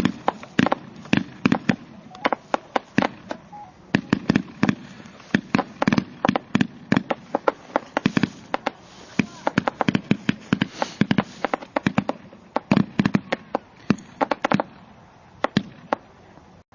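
Multi-shot fireworks cake firing: a rapid, irregular volley of launch pops and bursting bangs, with a crackling hiss through the middle. The shots thin out to a few last bangs about fifteen seconds in.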